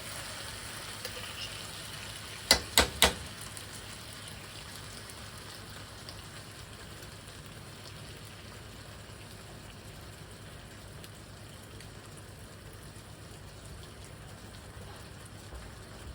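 Stir fry sizzling steadily in a hot pan, with three sharp knocks in quick succession about two and a half seconds in.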